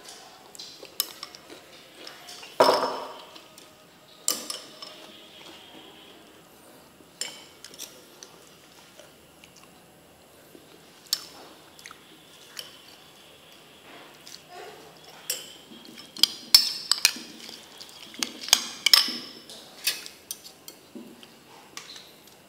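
Metal spoon clinking and scraping against a ceramic bowl while a dipping sauce is stirred. There is one louder ringing clink about three seconds in and a quick flurry of clinks a few seconds before the end.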